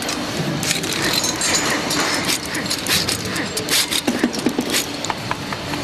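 Assembly-line workshop clatter: a quick run of metallic clicks and clinks, busiest over the first four seconds, over a steady background noise.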